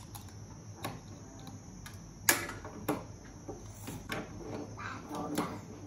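Small plastic building-block pieces clicking and snapping as they are fitted together, with scattered light knocks; the sharpest click comes a little over two seconds in and another about half a second later.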